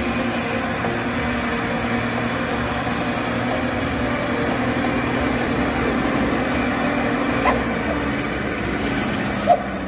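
Road traffic: trucks' diesel engines running with a steady drone as a box truck, a red truck and a car pass, with a short sharp knock near the end.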